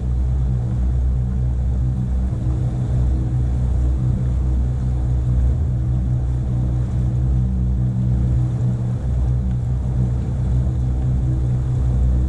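Motorboat engine running steadily as the boat moves along, a low, even rumble.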